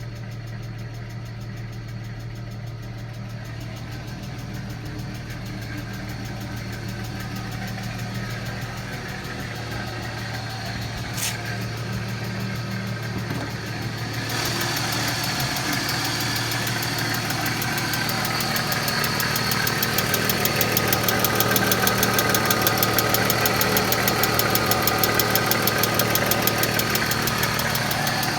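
1995 BMW E36 M3's S50 straight-six idling with a loud, fast, even ticking from the valvetrain, which the owner puts down to the lifters. The sound grows steadily louder, and about halfway through the ticking becomes brighter and more prominent.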